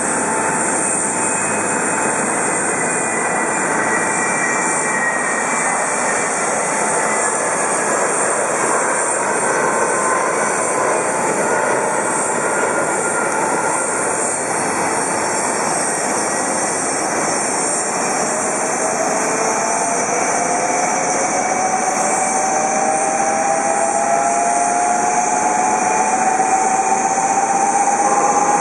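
Steady jet engine noise with a strong high hiss. From about two-thirds of the way through, a whine slowly rises in pitch as the noise grows a little louder, like a turbofan spooling up during engine start.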